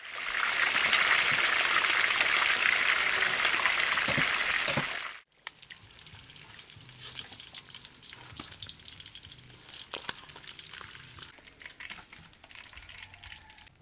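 Snakehead fish deep-frying in hot oil: a loud, dense sizzle that cuts off abruptly about five seconds in. After that comes a much quieter sizzle with scattered metal clicks as tongs and a slotted spoon lift the fried fish out onto a steel strainer.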